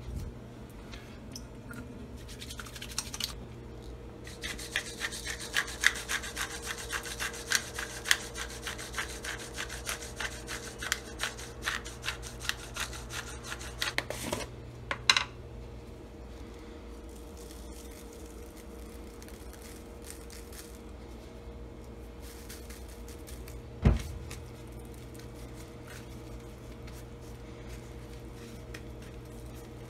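Pepper mill being twisted: a fast run of gritty clicks, starting a few seconds in and lasting about ten seconds. A sharp click follows, and there is a single thump about two-thirds of the way through, over a low steady hum.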